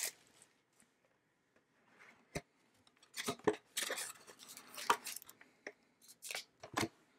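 Cardboard trading-card box being opened and its foil-wrapped pack handled: a single sharp tick about two seconds in, then a run of short rustles and crinkles.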